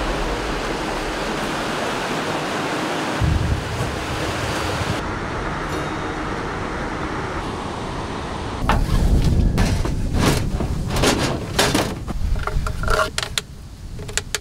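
Waterfall rushing steadily, a dense roar of falling water. From about nine seconds in, it gives way to uneven bursts of rumbling noise.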